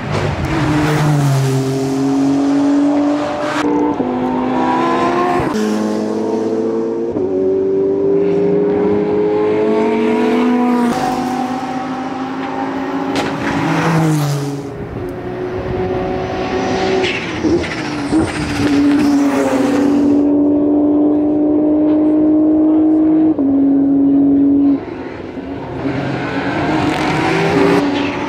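GT race cars passing one after another at speed, engines revving hard and changing pitch in steps through gear changes, rising and falling as each car goes by.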